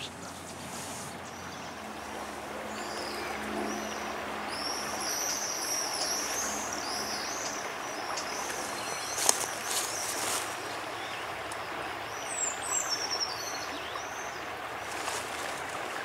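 Small birds chirping: many quick, high, arched notes overlapping a few seconds in, then a few falling chirps near the end, over a steady rushing background. A couple of short knocks about halfway through.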